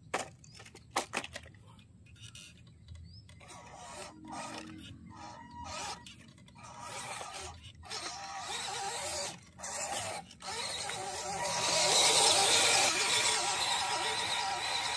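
1:12 scale MN-D90 RC Land Rover crawler: a few knocks in the first second as it tumbles down the dirt mound, then its small electric motor and gears whining as it drives on, louder from about twelve seconds in.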